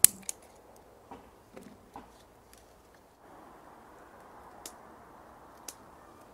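Scattered sharp snips and clicks of scissors cutting chilli peppers off the plants, the loudest right at the start. A faint steady hiss comes in about three seconds in.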